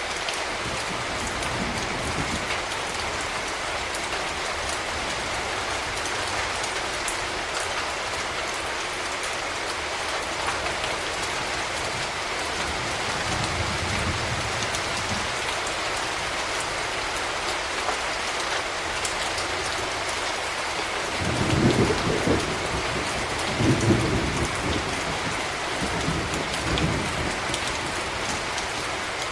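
Steady rain falling, with a few short low rumbles of thunder, loudest about three-quarters of the way in.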